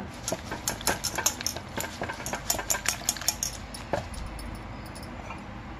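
Moringa leaves being swished by hand in water in a steel bowl, with bangles clinking against each other and against the bowl. The clinks come thick for the first three seconds or so, with one sharper clink about four seconds in, then thin out.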